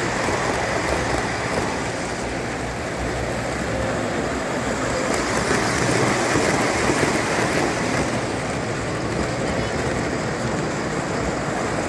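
Model trains running on the layout's track: a steady rumble of wheels and motors, a little louder about halfway through as one passes close.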